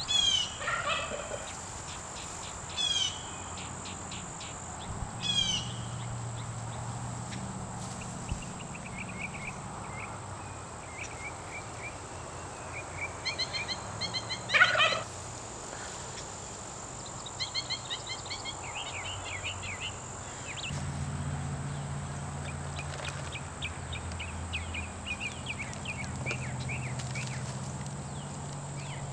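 Birds chirping and calling outdoors, with quick downward-sweeping calls in the first few seconds and one louder call about halfway through.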